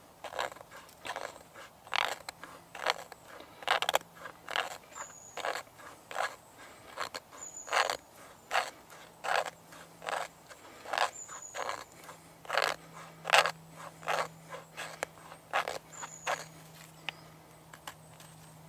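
Knife blade shaving a piece of resinous fatwood on a wooden stump: a run of short scraping strokes, a little more than one a second.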